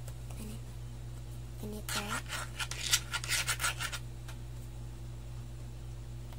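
A small plastic spoon scraping and scooping powdered sodium bicarbonate inside a small plastic bottle: a run of quick scratchy strokes lasting about two seconds, starting a couple of seconds in.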